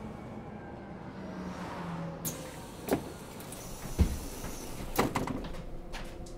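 Inside a moving bus: steady engine and road hum, with a few sharp knocks and rattles from about three seconds in, the loudest a thud about four seconds in.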